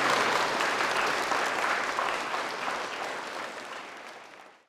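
Audience applauding, fading steadily and dying away to silence near the end.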